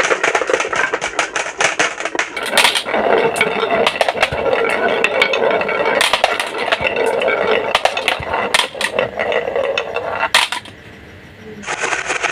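Marbles rolling and clattering down a marble run's tracks: a steady rolling rumble full of quick clicks and clacks as marbles hit one another and the track. It drops off briefly near the end, then the clicking starts up again.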